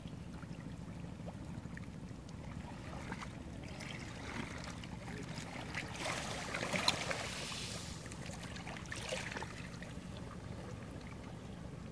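Waves washing on a beach over a steady low rumble. One wave swells and fades between about six and eight seconds in, and a smaller one follows near nine seconds.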